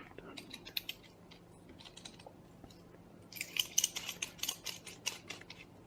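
Small metal and plastic parts of a 907 soldering iron clicking, tapping and scraping as the tip is fitted back onto the iron by hand, with a quick flurry of clicks in the second half.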